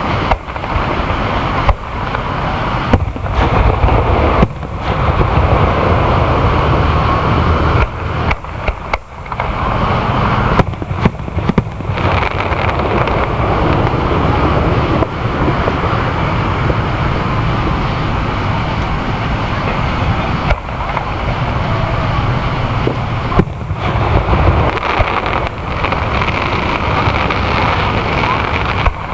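Aerial fireworks shells going off, with a few sharp bangs standing out over a steady, loud rumbling background noise.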